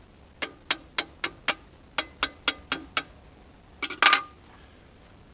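A run of sharp metallic clicks, about four a second, then a louder metal clank about four seconds in, from hands working the steel bucket pins of a mini excavator.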